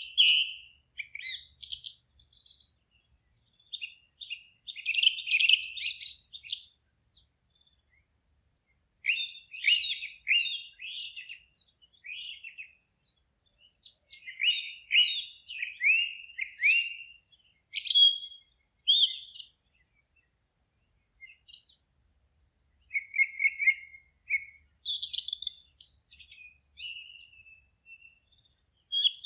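Forest songbirds singing in short chirping and trilling phrases, with quiet gaps between them, the longest a couple of seconds after the middle.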